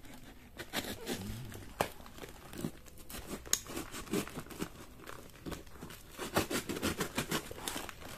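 Box cutter slicing through plastic packing tape on a cardboard box, the tape and cardboard crinkling and tearing with many irregular small snaps and scrapes.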